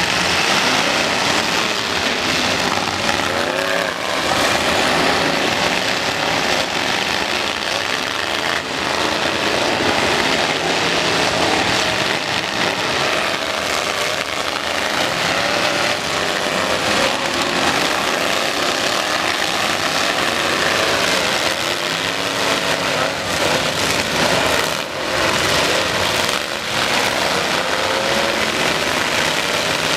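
Many demolition-derby pickup truck engines revving hard together, with occasional bangs of the trucks crashing into each other.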